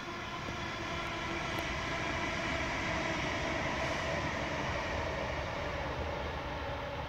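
Aircraft flying over: a steady rushing drone that swells to its loudest around the middle, its tones slowly falling in pitch.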